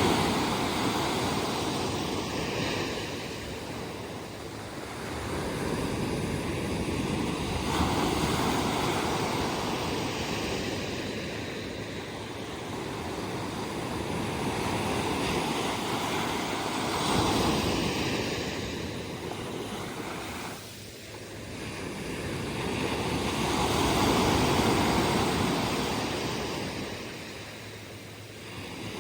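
Ocean surf: waves breaking and washing ashore, the rushing noise swelling and falling back about every seven to nine seconds as each wave comes in.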